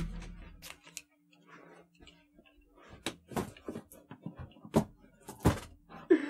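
Quiet for the first few seconds, then a handful of sharp knocks and thumps, about four of them, as a person bends down and moves about beside a desk and chair.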